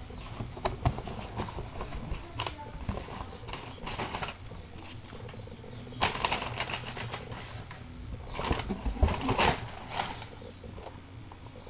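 Paper and cardboard rustling with scattered clicks as a shoebox and its wrapping paper are handled, coming in irregular bursts that are heaviest a little past halfway.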